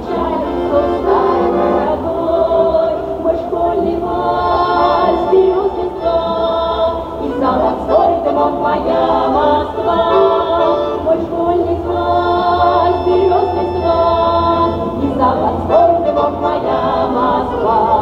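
A women's folk ensemble singing a Russian folk song together in several-part harmony, voices held on long notes.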